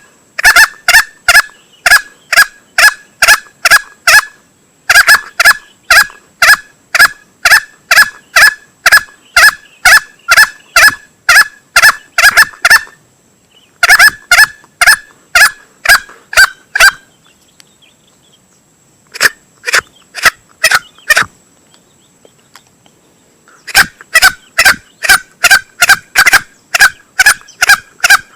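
Junglefowl lure call for hunting green junglefowl: rapid sharp clucking calls, about three a second, in bouts of several seconds broken by short pauses. A faint steady high whine runs underneath.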